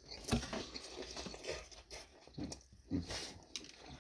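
A person biting into and chewing a large mouthful of pizza, with crunching from the crisp crust and wet mouth noises.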